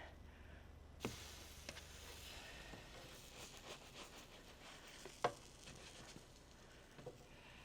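Stuffed French toast frying on a grill at about 400 degrees, sizzling faintly, with a few light clicks as the pieces are flipped.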